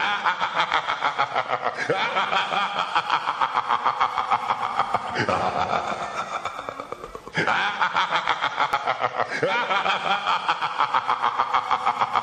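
A man's wicked, scary laugh: long runs of rapid 'ha-ha' pulses, each run giving way to the next every two to three seconds.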